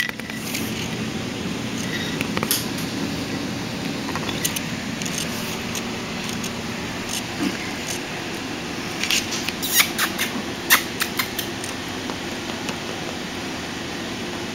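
Pomeranian puppy gnawing and chewing a piece of raw chicken: scattered small clicks and smacks, bunched about nine to eleven seconds in, over a steady low background hum.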